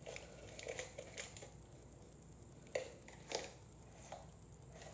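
Faint handling noises from a clear plastic jar of small cosmetic accessories: soft crinkling and rustling with a few light, sharp clicks.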